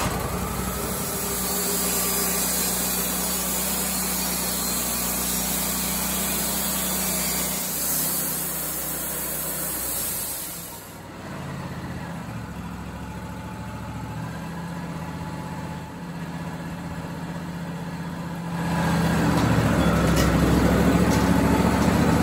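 Wood-Mizer portable band sawmill's engine running steadily. It drops in level about halfway through and comes back louder a few seconds before the end.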